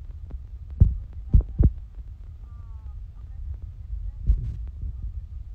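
Low rumbling handling noise with dull thumps and knocks from hands working ribbon yarn against a tabletop: three knocks about a second in and another past four seconds.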